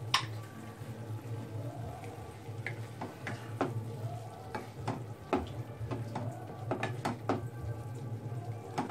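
A spatula stirring bottle gourd mash in a cooking pan, knocking against the pan in a dozen or so sharp clicks, a loud one right at the start, over a steady low hum.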